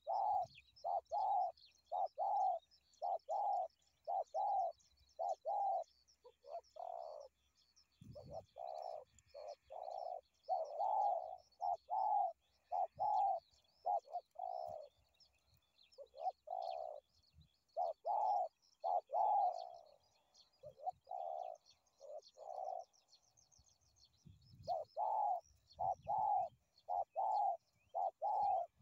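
Spotted doves cooing: runs of short, evenly spaced coos, broken by brief pauses, with faint high chirping of small birds behind.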